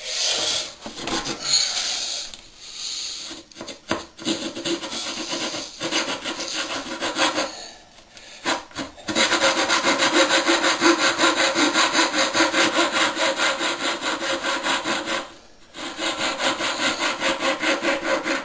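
Coping saw cutting a scribed profile into the end of a wooden skirting board with short, fast strokes. The strokes are uneven and halting for the first several seconds, then settle into a rapid even rhythm of about five a second, with a brief pause near the end.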